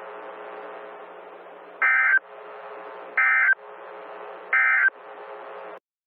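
Emergency Alert System SAME data bursts from a NOAA Weather Radio broadcast: three short warbling digital tone bursts about a second apart, the end-of-message code that closes the alert. They sound over the radio's steady static hiss and hum, which cuts off near the end.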